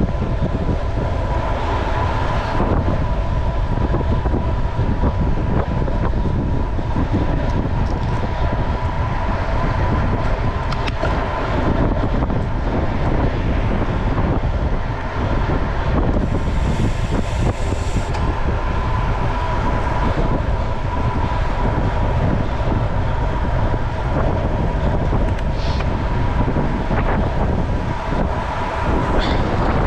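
Steady wind noise on the microphone of a camera on a gravel bike moving at speed, over the rolling noise of the bike, with a steady high hum.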